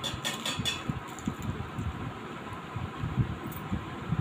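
A crisp golgappa (pani puri shell) crunching as it is bitten whole, a short crackly burst in the first second, then chewing with low irregular thumps over a steady background hiss.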